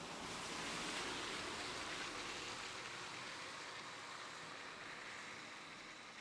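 A vehicle passing at a distance: a broad rushing hiss of tyre and road noise that swells about a second in and slowly fades away. Crickets chirp steadily underneath at a constant high pitch.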